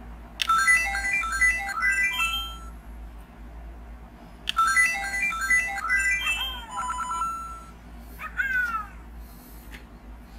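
LEGO Super Mario interactive figure playing electronic game jingles from its built-in speaker. It plays two short tunes of quick stepped beeps, then a few falling swoops near the end.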